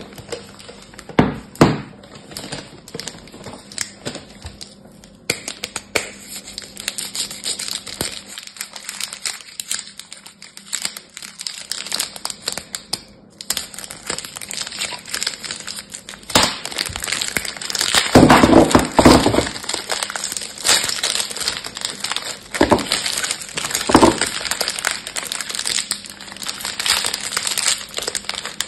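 Clear plastic wrap on a multipack of bar soaps crinkling and crackling as it is cut open with a knife and pulled off the bars. The crinkling gets louder about two-thirds of the way in.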